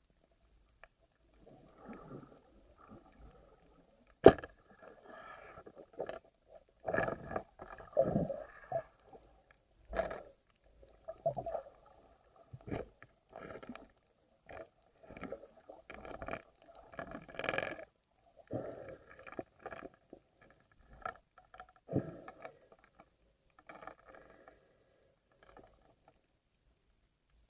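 Muffled water movement and irregular knocks recorded underwater, with one sharp knock about four seconds in.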